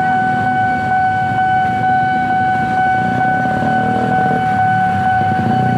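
Railroad crossing warning alarm sounding one steady high tone, over the engines of motorcycles and cars crossing the tracks.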